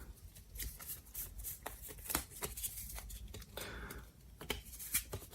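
Trading cards being handled and flipped through one at a time, giving soft, irregular clicks and flicks of card stock.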